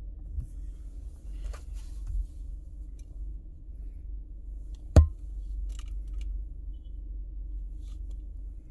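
A glass perfume bottle and its cap being handled: a few faint clicks and one sharp knock about five seconds in, over a steady low rumble.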